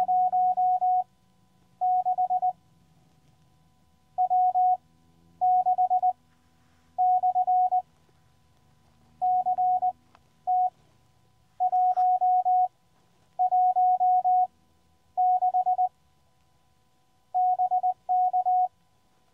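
Morse code (CW) from a QCX Mini transceiver: one steady beep keyed in quick dots and dashes, in groups of characters with short pauses between them. It is another summit station's incoming CW, sending its summit reference during a summit-to-summit contact.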